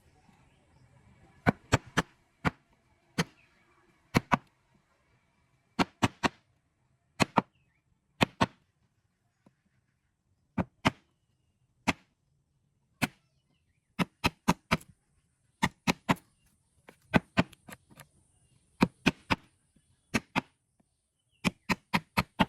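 Sharp knocks of a tool striking wood, coming in quick groups of two to four with short pauses between them.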